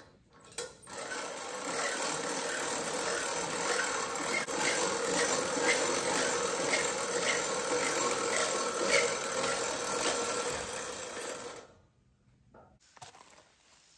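A log being hauled up loading ramps onto a portable sawmill's bed with a hand winch: a steady rasping and rattling with a regular click about twice a second. It stops abruptly near the end.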